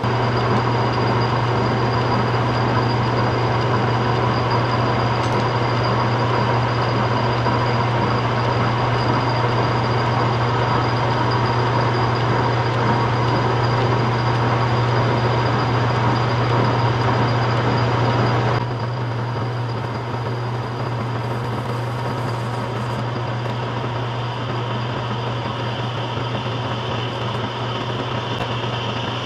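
Metal lathe running under a cut, a 3/8 in radius carbide insert turning a large spinning metal disc lubricated with cutting fluid: a steady motor hum under a dense hiss of cutting noise. About 18 seconds in the cutting noise drops and the lathe runs on more quietly.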